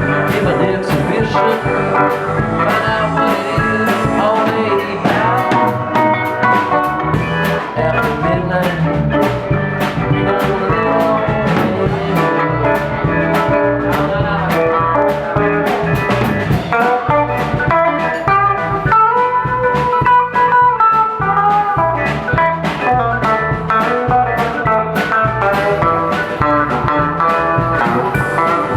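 Live rock band playing an instrumental passage, with electric guitar lines over bass and a steady drum-kit beat.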